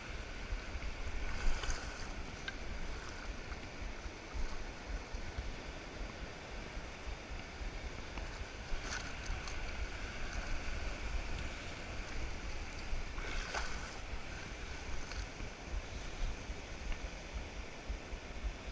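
Wind buffeting the microphone over the hiss of shallow surf washing across wet sand, with a few brief splashes.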